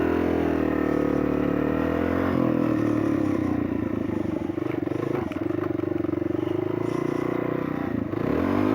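Lexmoto Adrenaline 125cc supermoto's single-cylinder engine running at steady high revs under way. The revs dip briefly about two seconds in and again near the end.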